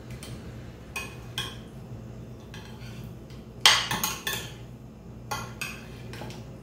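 Metal spoon clinking and scraping against a glass baking dish while stirring boiled potato cubes, with a handful of irregular clinks, the loudest a little past halfway.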